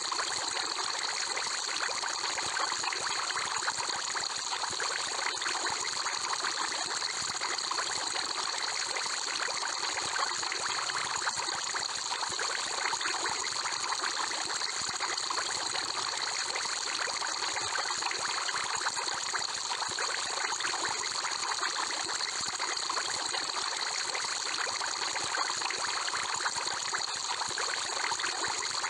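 Aquarium water bubbling and trickling steadily, with a fine crackle of bursting bubbles.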